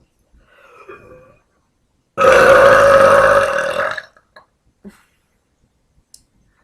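A woman burping: one long, loud belch of nearly two seconds that starts abruptly about two seconds in and tails off at the end.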